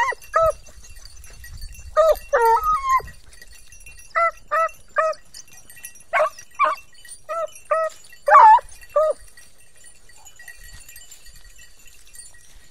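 Scent hounds giving tongue while working a trail: short, high, ringing yelps in quick runs of two or three, with a few drawn-out bays that bend in pitch.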